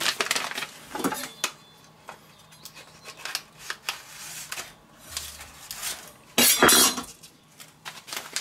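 Kitchen handling sounds: a knife and utensils clinking and scraping on a wooden cutting board and stone countertop, in short irregular knocks, with one louder scraping clatter about six and a half seconds in.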